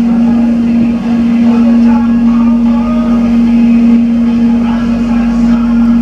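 Steady hum at one constant pitch inside the cabin of an airport rail link electric train moving along the track, over a low running rumble.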